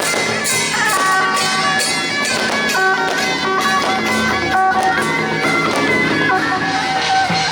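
Loud procession music: a melody of held notes stepping up and down over a steady beat of percussion.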